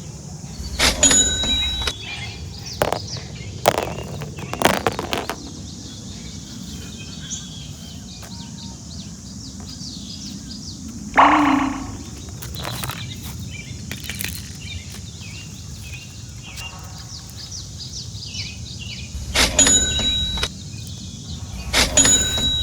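Outdoor ambience: a steady background hiss with scattered bird chirps, broken by a few short sharp sounds and one louder pitched call about halfway through.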